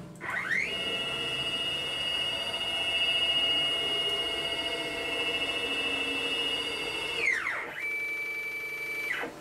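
Stepper motors of a Techno CNC router driving the gantry in a rapid homing move. There is a whine that rises in pitch as the axis speeds up, holds steady for about six and a half seconds and falls as it slows. It is followed by a shorter, slightly lower steady whine of about a second that cuts off suddenly.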